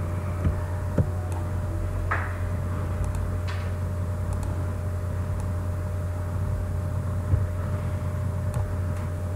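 Steady low electrical hum of the recording setup, with a few soft computer-mouse clicks: two about half a second apart near the start and one near the end. There are two brief soft rustles in between.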